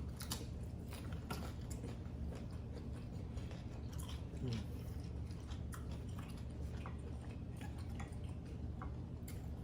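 People chewing and eating seafood-boil food, with many small irregular mouth clicks and smacks over a steady low hum.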